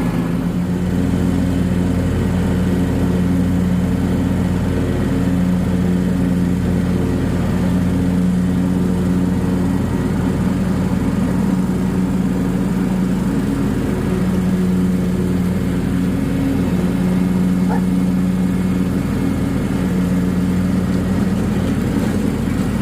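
John Deere X350 lawn tractor's engine running at a steady speed, its pitch and loudness holding constant.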